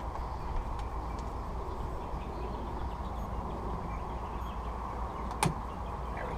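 Steady background hum with a few faint clicks of a hand tool working the hose clamps on the intake elbow, and one sharp metallic click about five and a half seconds in.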